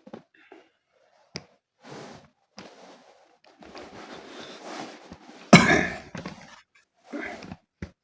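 A man coughing, the loudest cough about five and a half seconds in, among softer throat-clearing noises.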